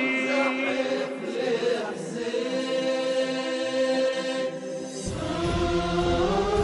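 A choir of voices holding long chanted notes in a Shia religious elegy (latmiya). About five seconds in, a deep low rumble comes in beneath the voices.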